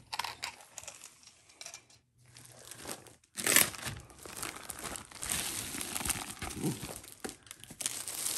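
Clear plastic sleeve around a rolled diamond-painting canvas crinkling as it is handled, faint rustles at first, then louder, dense crinkling from about three and a half seconds in.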